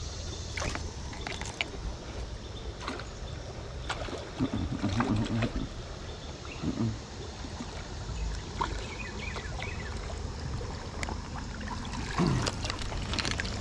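Shallow stream water rippling and splashing around a wader's legs, with scattered small knocks and clicks.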